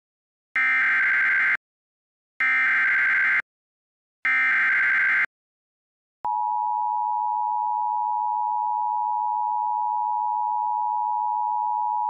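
Emergency Alert System activation: three one-second bursts of screeching SAME header data tones, each followed by a second of silence, then a steady two-tone EAS attention signal starting about six seconds in. Together they signal the start of an EAS alert, here a severe thunderstorm warning.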